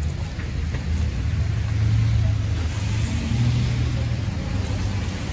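Street traffic: car engines and tyres on the road, a steady low rumble that grows louder in the middle as a car goes by.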